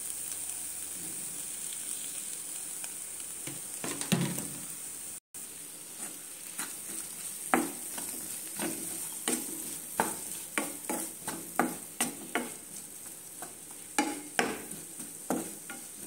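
Chopped bitter gourd (karela), onion and spices frying in oil in a non-stick pan, with a steady sizzle. In the second half, sharp knocks come about twice a second as a wooden spatula stirs the mix and strikes the pan.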